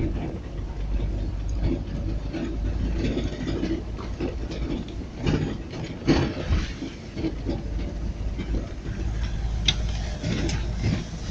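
Handling noise from a phone being jostled: irregular knocks and rubbing against the microphone over a steady low rumble.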